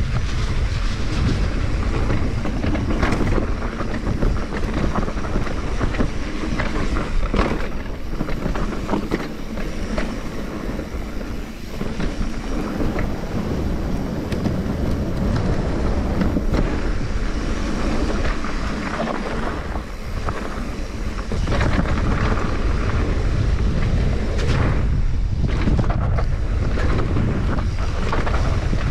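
Mountain bike riding downhill at speed, with wind buffeting the microphone and tyres running over dirt. The bike rattles and clatters over bumps. The wind rumble grows louder about two-thirds of the way through.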